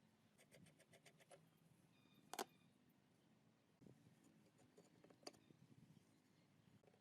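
Very faint clicks and taps as small parts of an old sewing machine are worked by hand during dismantling: a quick run of light ticks about half a second in, a sharper click about two and a half seconds in, and another a little past five seconds.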